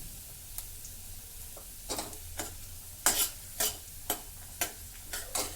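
Chopped garlic and green chillies sizzling in hot oil for a dal tempering. From about two seconds in, a stirring utensil strikes and scrapes the pan in a run of sharp clicks.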